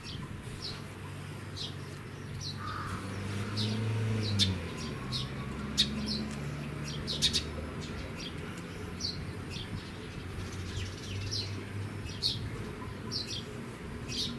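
Small birds chirping repeatedly, short high chirps about once or twice a second. Under them a low droning hum comes and goes, loudest in the first half, and a few sharp clicks stand out in the middle.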